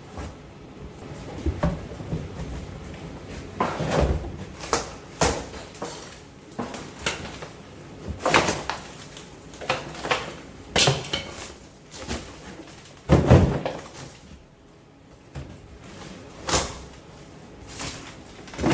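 Plaster and wooden lath being pulled off a wall: irregular knocks, cracks and scrapes as pieces break away, the loudest a heavy thud about thirteen seconds in.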